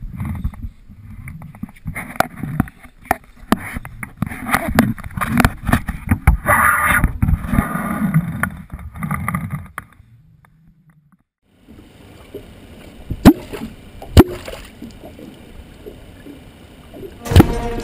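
Water sloshing and gurgling around a small boat at night, with irregular knocks and clicks from handling, for about ten seconds. After a short silence come quieter sounds with a few sharp clicks, and music begins near the end.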